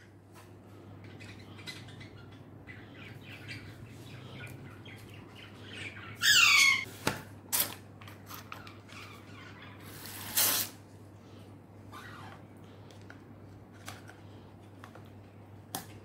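A parrot gives one loud, harsh call about six seconds in, falling in pitch. Around it come small clicks and a brief hiss a few seconds later, as a syringe is worked in a plastic dish of hand-feeding formula.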